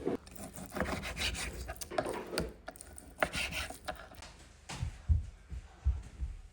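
Food being prepared on a wooden cutting board: irregular rasping, scraping strokes, then a few dull knocks in the second half.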